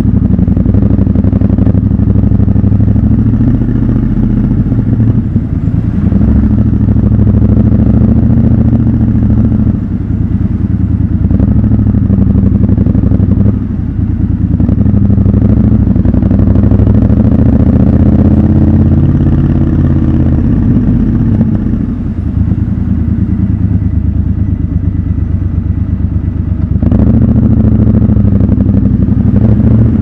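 Triumph Scrambler 1200 XC's parallel-twin engine running at low speed inside an underground car park. The engine note rises and falls a few times, with brief dips as the throttle is eased off.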